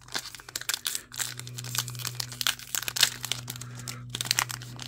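Plastic wrapper of a trading-card pack crinkling and tearing as it is pulled open by hand: a quick, irregular run of crackles, over a steady low hum.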